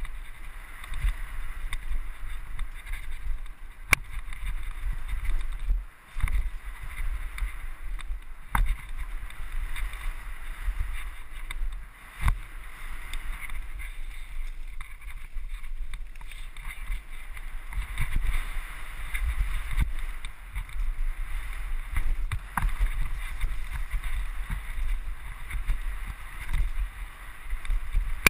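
Riding noise from a mountain bike descending fast on a gravel trail: wind buffeting the camera microphone and tyres hissing over the gravel. A few sharp knocks come through as the bike jolts over bumps.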